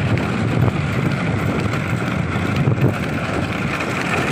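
Motorcycle engine running steadily at riding speed, with wind buffeting the microphone.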